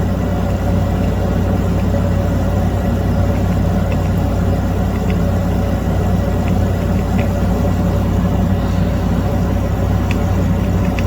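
Steady low hum from a running fan or motor, with a few faint light clicks.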